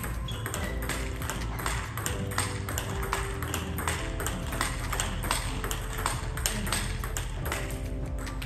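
Table tennis ball hit back and forth in a rally: a quick run of sharp pinging clicks as the ball strikes the bats and the table, over background music.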